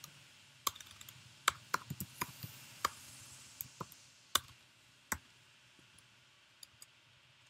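Typing on a computer keyboard: irregular single keystrokes for about five seconds, then only a couple of faint clicks near the end.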